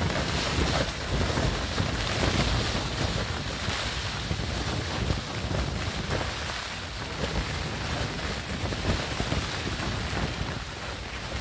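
Strong, gusty storm wind blowing and buffeting the microphone, with a heavy rumble that swells and eases.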